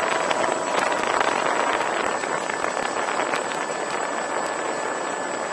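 Steady rushing noise with scattered light ticks and a faint, thin motor whine, heard through the camera riding on an RC P-51 Mustang model on the runway.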